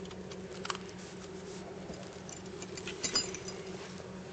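A puppy shifting in her crate on a blanket: a few light clicks and rustles, about a second in and again near three seconds, over a steady low hum.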